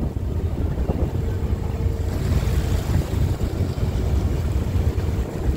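Wind buffeting the microphone over the low, steady hum of an icebreaking sightseeing ship's engine, with water churning through broken drift ice along the hull. A brighter rush of water comes about two seconds in.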